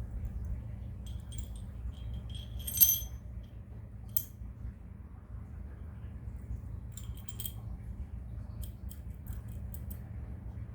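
Car AC compressor running with the engine, giving a steady low drone: the rough 'ngorok' (snoring) noise of a compressor that sounds rough and worn. Light metallic jingles come and go over it, the loudest about three seconds in.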